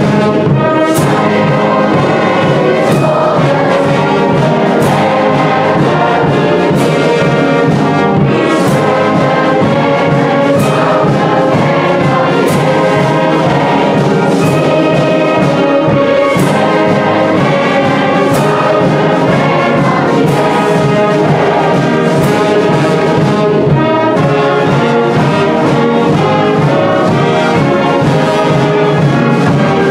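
A school marching band playing a tune loudly: sousaphones, trumpets and other brass, saxophones and drums together, with sharp accented hits about every two seconds.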